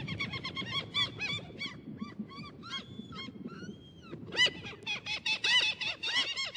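A flock of geese honking, many short calls overlapping in quick succession over a low steady rumble. The calls thin out briefly in the middle, then grow denser and louder from about four and a half seconds in.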